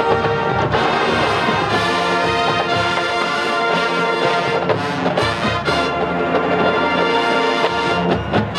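Marching band playing on a football field, brass to the fore, in held chords that change every second or so.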